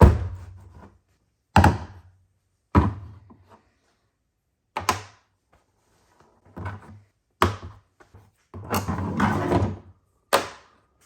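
A series of sharp thuds, about eight in all at irregular intervals, each dying away over a fraction of a second, with one longer, rougher sound shortly before the last thud.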